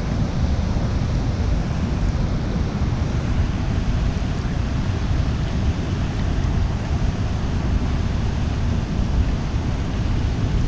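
Wind buffeting the microphone: a steady, heavy low rumble with hiss over it.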